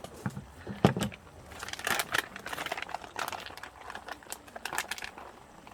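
Crinkling and rustling of something being handled, with many small clicks and a sharp knock about a second in.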